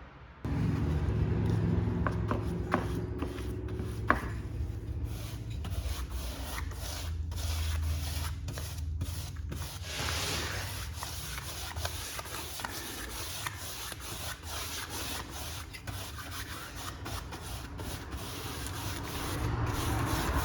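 Wood being sanded: a run of irregular rubbing strokes, with a low steady hum under the first few seconds.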